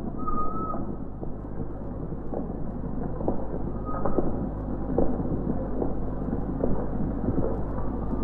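Steady crackling noise and low hum of an old optical film soundtrack, with scattered small clicks and no speech.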